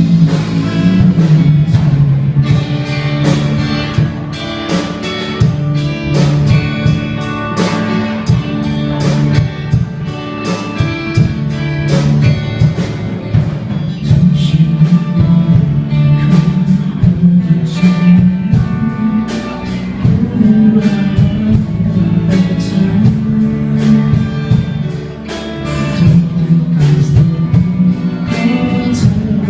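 A song played by a band: guitar over a steady drum beat, with singing.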